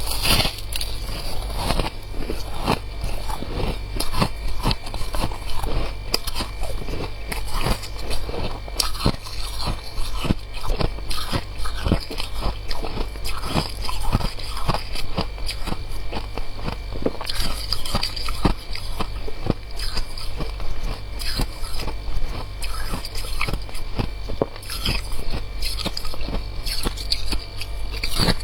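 Close-up biting and chewing of crunchy freezer frost: a dense, irregular run of sharp crunches over a steady low hum.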